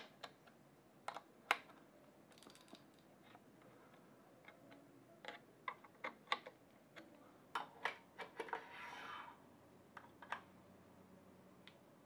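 Faint, irregular light clicks and taps of small parts being handled: a pencil and a Hope Tech 4 disc brake caliper being worked by hand, with a brief scrape about nine seconds in.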